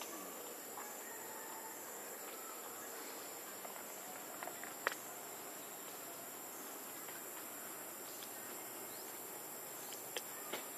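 Steady, high-pitched drone of insects in the trees, with a few soft clicks, the sharpest about five seconds in.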